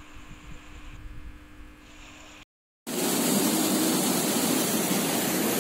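A faint low rumble with a steady low hum, then after a brief cut a loud, even rush of water from a swollen, fast-flowing river in flood after days of rain.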